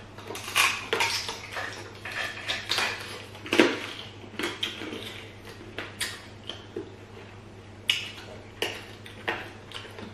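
Eating sounds: irregular clicks and crunches of chewing chicken on the bone, with now and then the clink of a spoon against a plate.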